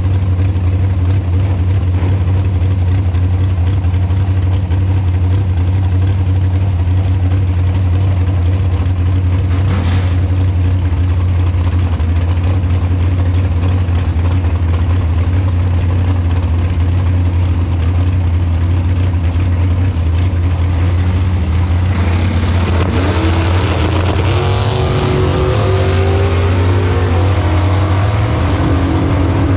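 Dragster engine idling loudly as heard from the cockpit, a steady low drone. After about twenty seconds it gets louder, with engine revs rising and falling as the car is staged at the line.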